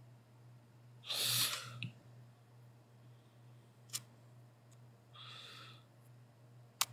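A person's breathing: two short, noisy exhales, about a second in and again around five seconds in. Two sharp clicks fall between and after them, over a steady low hum.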